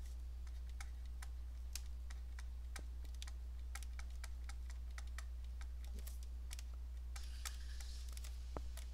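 Stylus tapping and clicking on a tablet screen while handwriting, a few sharp irregular clicks a second, over a steady low hum.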